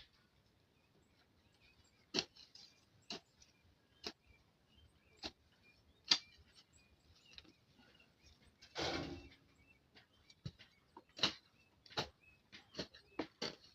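Jembe hand hoe striking into soil while weeding and cultivating, sharp chopping strikes about once a second that come faster near the end, with a longer scraping rustle lasting about a second around nine seconds in.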